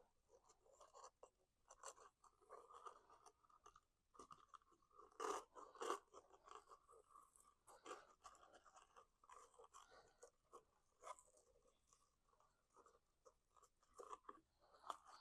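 Faint handling noise of cardstock and a pipe cleaner being worked by hand: irregular soft rustles, crinkles and light taps, a little louder about five to six seconds in.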